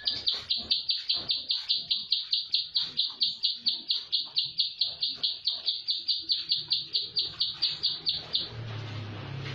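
Caged prinia (prenjak sawah) calling a fast, tight run of sharp repeated notes, about five or six a second, which stops abruptly near the end. A low hum takes over for the last second.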